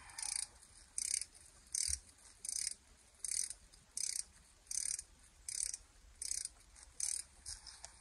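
Hand ratchet clicking in about eleven quick back-strokes, roughly one every three-quarters of a second, as it turns out the 10 mm bolts of a Toyota Camry's transmission pan.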